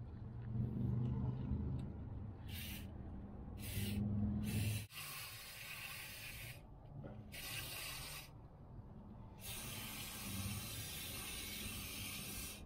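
Aerosol spray grease hissing from a can in short bursts, then one long spray of about three seconds near the end, as it is sprayed onto a pickup truck's drive shaft universal joints. A low rumble of handling noise sits under the first few seconds.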